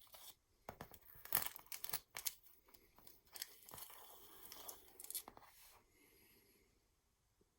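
Handling noise while soldering wires to a small circuit board: scattered light clicks and crackly rustling, dying down after about five seconds.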